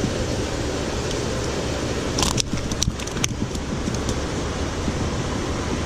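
Steady outdoor background noise, with a few short clicks and rustles between about two and three and a half seconds in.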